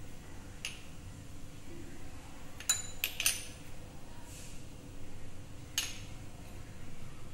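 Small spice bowls clinking against a white mixing bowl as powdered spices are tipped out: about five light clinks, three in quick succession near the middle.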